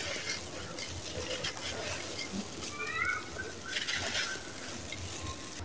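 Dry sand-cement cylinder crumbled in the hands, the loose grit hissing and trickling through the fingers with small gritty crunches. A bird calls briefly, a few short rising notes, about three seconds in.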